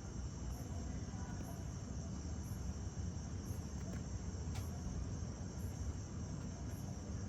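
Steady, high-pitched chirring of insects such as crickets, over a low background rumble, with a single sharp click about halfway through.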